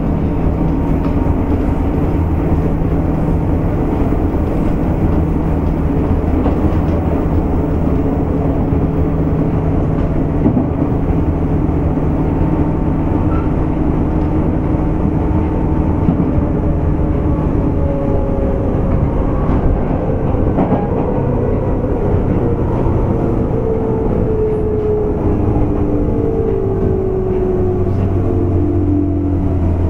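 Running sound inside a JR West 201-series chopper-controlled electric motor car: steady rumble of wheels on rail under a constant motor hum. In the second half the motor and gear tones fall steadily in pitch as the train slows down.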